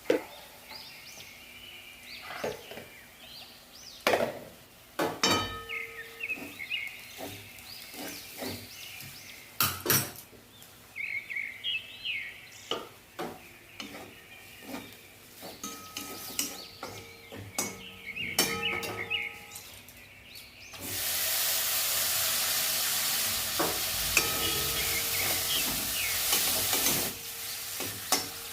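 Metal utensil clinking and scraping against a cooking pan, then from about two-thirds of the way in a loud sizzle of food frying in hot oil for about six seconds, which drops off near the end.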